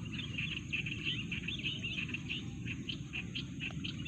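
Outdoor wildlife chirping: quick, high chirps come densely in the first couple of seconds, then thin out to scattered ones. A steady low rumble runs underneath.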